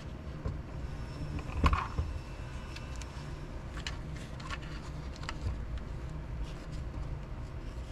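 Small handling noises of light-kit mounting clips and a spacer strip being positioned: a few light clicks and taps, the loudest a sharp knock about two seconds in, over a steady low rumble.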